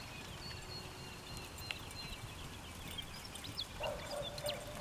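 A herd of cattle walking across a grass paddock, their hooves shuffling and thudding softly. Faint high chirps sound over it, and a short pitched call starts near the end.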